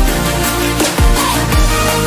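Electronic dance music with a heavy bass beat, a kick drum striking about every half second.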